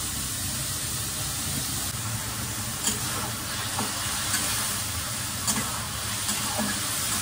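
Chopped vegetables and tomatoes sizzling steadily in oil in a kadhai as they are stirred, with a few light clicks of the spoon against the pan.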